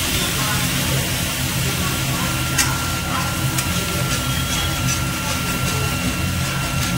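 Whole spices and dried red chillies sizzling in hot oil in a kadai, a steady hiss over a low hum, as a metal spatula stirs them, clicking and scraping against the pan a few times from about two and a half seconds in.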